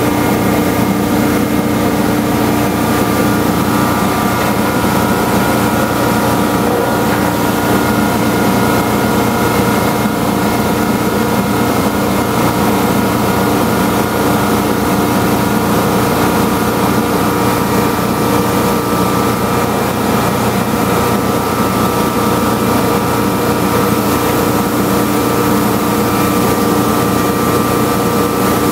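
11-station rollformer running steadily as an aluminum hurricane panel feeds through its forming rolls: a constant mechanical drone with several steady humming tones.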